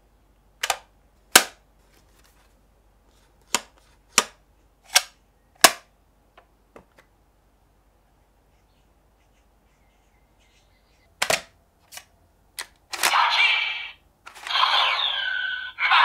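Sharp plastic clicks from the DX Valvaradraw Buckle and Valvarusher transformation toys being worked, about six in the first six seconds and four more about eleven seconds in. From about thirteen seconds the toy's speaker starts its electronic transformation (henshin) sound effects.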